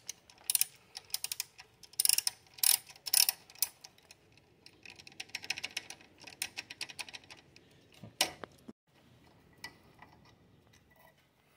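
Socket ratchet clicking in quick runs as 10 mm bolts are backed out of a motorcycle's rectifier cover, followed by sparser small metal clicks as a bolt is turned out by hand. A single sharper knock comes about eight seconds in.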